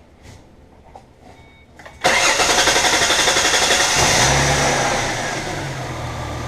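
A few faint clicks, then about two seconds in the 2005 Mustang's 4.0-litre V6 starts suddenly. It runs loud at first and eases to a steady idle after a couple of seconds: the first start on a newly fitted alternator.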